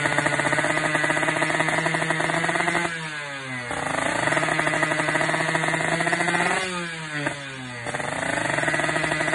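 Tuned Kawasaki Ninja 155 two-stroke single-cylinder engine of a drag bike held at steady raised revs; twice, about three seconds in and again near seven seconds, the revs fall away and then climb back up within a second.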